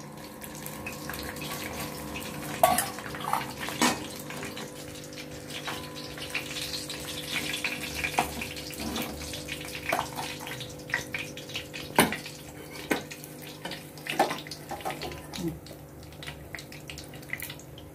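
Hot mustard oil sizzling and crackling in a kadai over a gas flame as fried fish-head pieces are taken out, with scattered pops and a few sharper clicks and knocks of a spatula against the pan.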